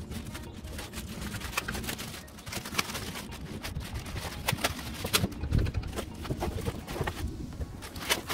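Irregular knocks, taps and clatter of PVC fascia boards being handled on timber rafters and scaffold boards, with a heavier thump about five and a half seconds in.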